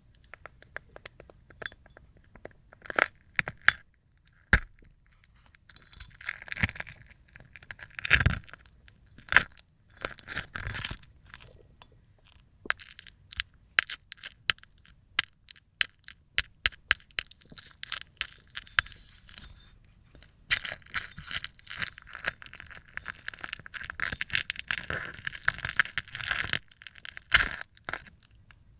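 A dried film of slime being peeled off a plate, crackling and tearing. Sharp clicks and cracks come scattered at first, then turn into a dense, continuous crackling tear about two-thirds of the way in.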